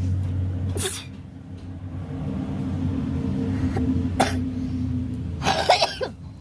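A person with a head cold sneezing: a short sneeze about a second in, another a little after four seconds, and a louder, longer sneeze near the end, over a steady low hum.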